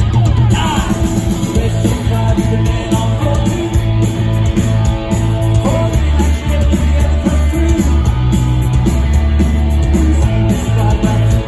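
Live punk rock band playing loud, with electric guitar, heavy bass and drums, and a singing voice.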